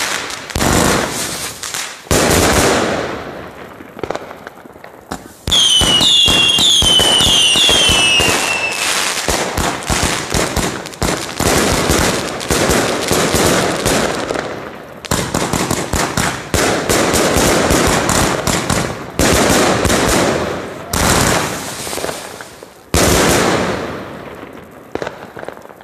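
Katan 'Event box' 228-shot firework cake firing: rapid volleys of shots and crackling bursts coming in surges, fading out near the end. About six seconds in, a string of short falling whistles sounds over the crackle.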